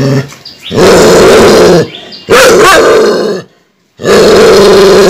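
German shepherd growling and barking angrily in three long, very loud bursts of about a second each.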